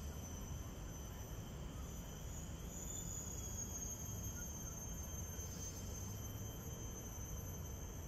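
Insects chirring steadily in a high pitch, swelling a little a few times, over a low background rumble.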